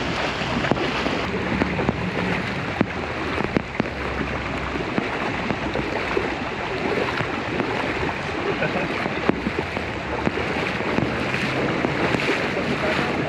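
Floodwater splashing and churning steadily around wading legs and car tyres as people push a car through a flooded street.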